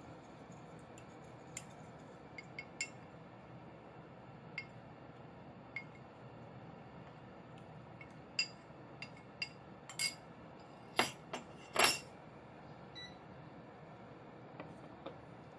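Light clinks of a metal spoon against a small glass cup as potato-starch slurry is stirred, then a cluster of louder clinks and knocks about two-thirds of the way through as the slurry is poured into a stainless steel saucepan.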